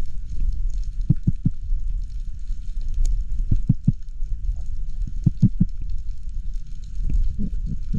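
Muffled water noise heard through an underwater camera housing: a steady low rumble with short dull thumps in clusters of three, then a quicker run of thumps near the end.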